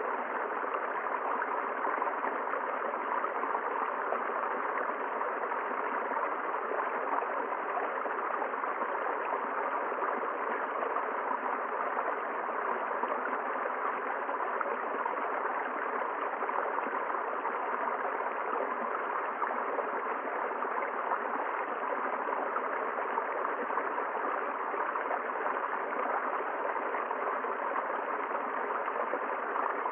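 River water flowing, a steady unbroken rush.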